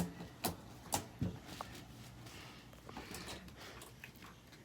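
Fluffy slime being squeezed and pulled by hand, giving a few short sharp clicks and pops, most of them in the first second and a half.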